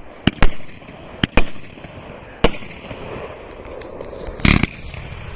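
Consumer firework cakes firing: two quick pairs of sharp bangs in the first second and a half, a single bang about two and a half seconds in, and a rapid cluster of bangs near the end, with a steady hiss between the reports.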